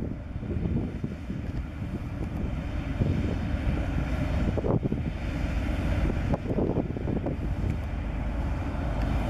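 Diesel freight locomotives running as they approach at low speed, a steady low engine rumble, with a few sharp clicks about five and seven seconds in.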